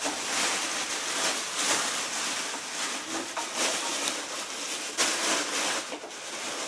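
Plastic wrapping bag crinkling and rustling continuously as it is pulled off a kitchen appliance by hand.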